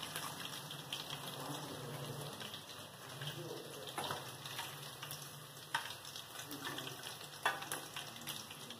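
Batter-coated chicken pieces deep-frying in hot oil in a steel kadai: a steady, fine crackling sizzle, broken by a few sharp clicks.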